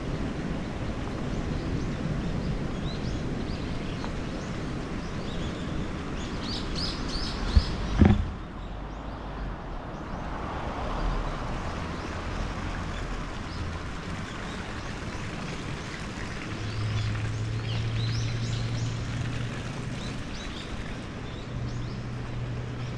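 Steady outdoor background noise of traffic and the city, with small birds chirping now and then. Two sharp knocks close together about eight seconds in are the loudest sounds. A low steady hum sets in about two-thirds of the way through.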